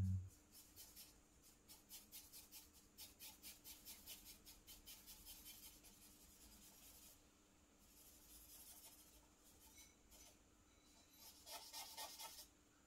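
Stick of charcoal scratching faintly on drawing paper in quick short strokes, several a second, as shading is hatched in. The strokes pause for a few seconds, and a second short run comes near the end. A brief low bump at the very start.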